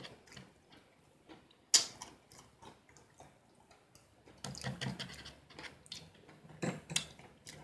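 Close-up eating sounds: chewing with wet mouth clicks and smacks, one sharp click a little under two seconds in, and denser chewing noises in the second half.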